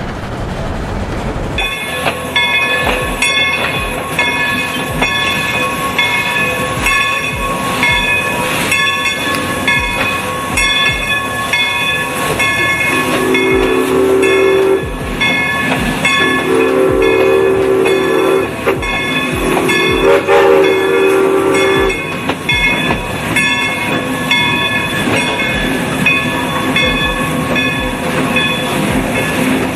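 A steam locomotive's brass bell ringing over and over, each stroke ringing on into the next; it starts about a second and a half in. In the middle come three long steam whistle blasts, each about two seconds.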